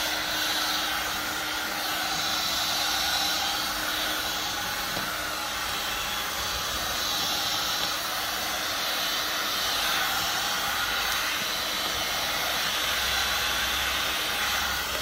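Electric heat gun blowing a steady rush of hot air, warming a car's vinyl wrap so it can be peeled off the tailgate.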